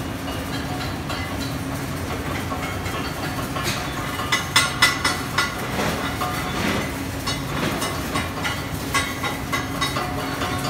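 Busy welding shop: a steady machine hum under irregular metallic clanks and crackles, densest from about four to five and a half seconds in.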